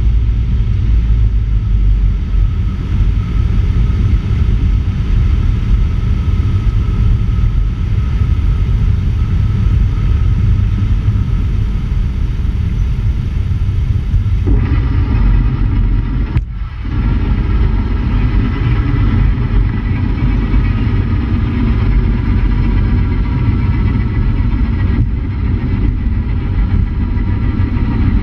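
Cessna 150 light aircraft's engine and rushing airflow past a wing-mounted camera during landing. About halfway through, the sound becomes fuller and lower as the wheels run on the runway, followed by a brief dip. Then the landing roll continues steadily.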